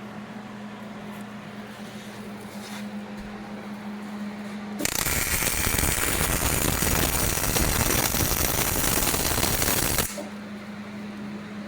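Hobart 220-volt welder's arc crackling steadily for about five seconds while a tack weld is laid on half-inch steel plate, starting about five seconds in and cutting off sharply. A steady low hum runs before and after the arc.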